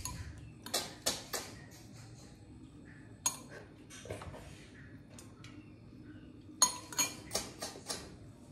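A metal spoon and snail shells clinking against glass bowls: scattered sharp clinks, a few ringing briefly, then a quick run of about five clinks near the end.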